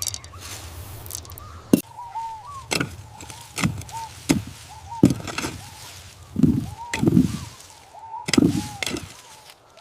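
Chopping on a cutting board: about eight sharp knocks with dull thuds at uneven intervals. Short high chirping calls are heard between them.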